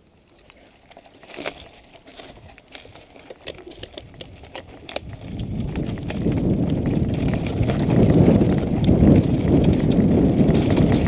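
Mountain bike riding a rocky dirt trail: scattered knocks and rattles as it rolls over stones, then from about five seconds in a loud, steady rumble of tyres and wind on the handlebar mic as it picks up speed on the descent.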